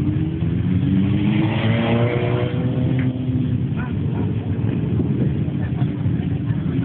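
Several motorcycle engines running at low revs as the bikes roll slowly past, with one revving up in a rising pitch between about one and two and a half seconds in.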